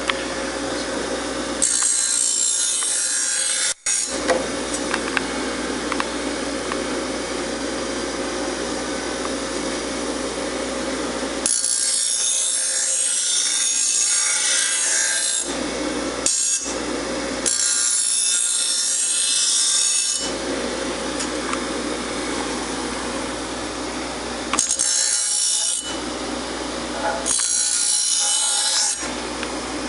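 Grinder motor running steadily while a steel lawnmower blade is pressed against the wheel in several passes of one to four seconds each, each pass a harsh, hissing grind over the motor hum.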